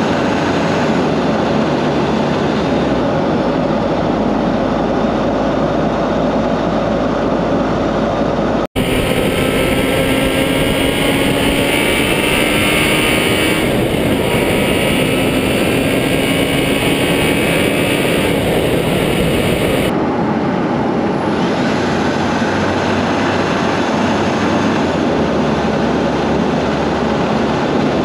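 A vehicle driving along a paved road: steady engine, tyre and wind noise, with a faint engine note slowly rising in pitch as it picks up speed. The sound briefly drops out about nine seconds in and changes tone around twenty seconds in.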